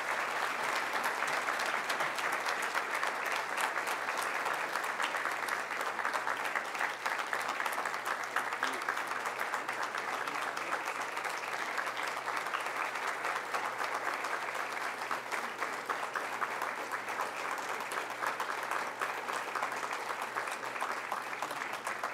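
Audience applauding, a dense, steady clapping that holds for the whole stretch.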